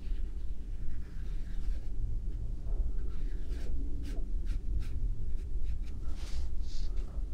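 A small pointed watercolour brush stroking paint onto watercolour paper: a run of short, scratchy swishes, several in quick succession in the second half, over a steady low hum.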